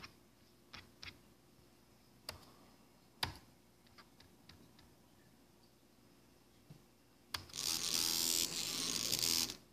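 A handful of laptop mouse and keyboard clicks, then a stepper motor driven by a cheap CNC Shield V4 runs loudly for about two seconds and stops abruptly. The board is not driving the motor properly.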